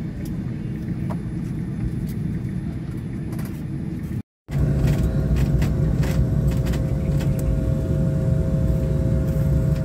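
Steady low rumble inside the cabin of an Embraer E195-E2 airliner on the ground. After a brief break about four seconds in, a louder rumble with two steady whining tones, typical of the engines running, heard near the wing.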